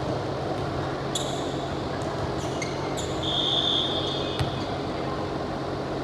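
Steady background noise of an indoor volleyball game, with short high squeaks about a second in and a longer squeak around three seconds in.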